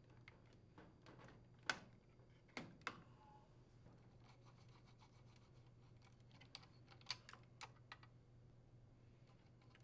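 Near silence with a few faint, scattered clicks and light scrapes as the induction coil's metal plate is handled and a Torx driver works the terminal screws on the induction module board.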